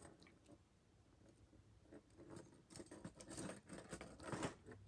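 Faint metallic clicking and rattling of steel handcuffs being handled between lock picks, starting about two seconds in.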